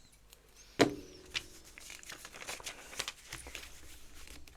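LEGO bricks being handled: one sharp plastic click a little under a second in, then a scatter of small faint clicks and rustles as pieces are moved and sorted.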